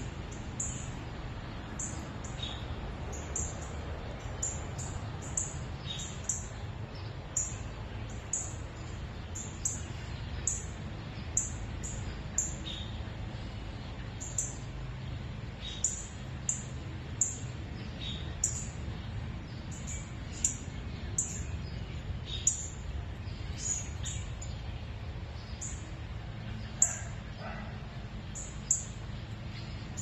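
A small bird chirping over and over, short high chips coming more than once a second, with fainter lower chirps every couple of seconds, over the steady rush of a shallow forest stream.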